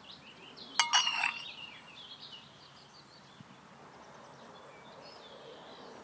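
Quick ringing clinks of porcelain about a second in, then faint scattered bird chirps.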